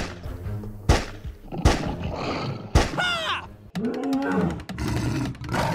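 Sound effects over background music: four heavy thuds about a second apart, then a short cry falling in pitch and a growling animal roar.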